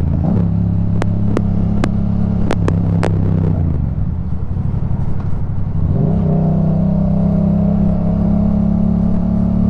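Motorcycle engine running on the ride, heard through a helmet-mounted GoPro mic. Its note drops about four seconds in and climbs back around six seconds, then holds steady. In the first three seconds there are several sharp pops: the popping of a loose GoPro mic adapter connection.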